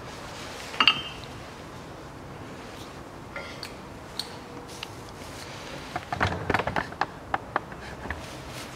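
Metal tools and steel car parts clinking and knocking. One ringing clink comes about a second in, then a quick run of sharp knocks and clicks about six seconds in.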